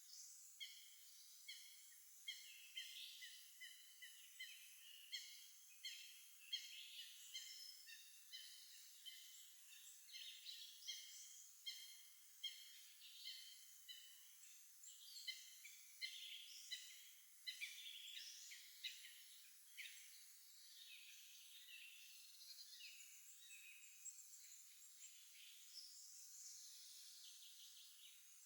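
Songbirds singing in spring: several birds overlap in quick, high chirps and short repeated phrases. The song is busiest through the first two-thirds and thins out near the end.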